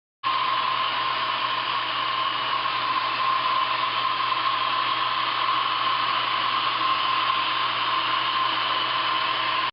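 Laser welding equipment running: a steady hiss with a low hum and a constant high tone, starting abruptly just after the start and cutting off suddenly at the end.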